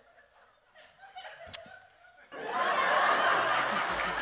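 Audience breaking out in laughter and applause about two seconds in, after a quiet stretch with a faint click.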